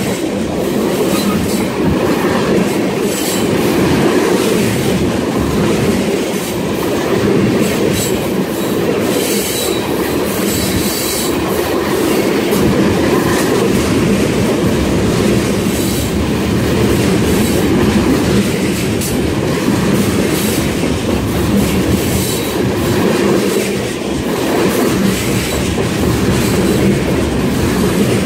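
Freight train of tank cars passing close by at speed: a steady, loud rumble of steel wheels on the rails, with clacks as the wheels cross the rail joints.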